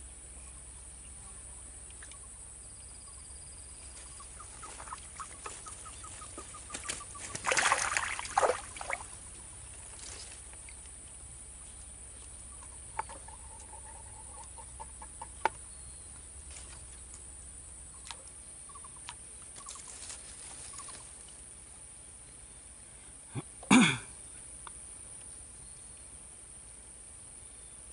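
A bird clucking in short, quick runs of notes, with a few louder knocks and rustles between them; the loudest is a sharp knock about four seconds before the end.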